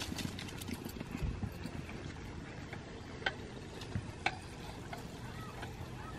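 Quiet outdoor background noise with a few brief faint clicks about three and four seconds in.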